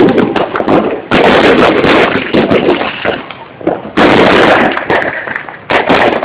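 New Year fireworks going off: a dense run of loud bangs and crackling bursts, with two big surges about a second in and about four seconds in.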